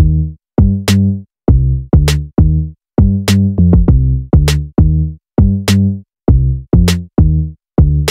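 Background music with a steady beat: short, clipped bass-heavy notes with brief gaps between them and a sharp percussive hit about every 1.2 seconds.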